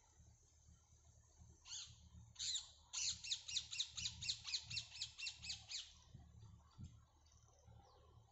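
A bird calling: two short calls, then a rapid series of about fifteen sharp, falling notes, about five a second for some three seconds.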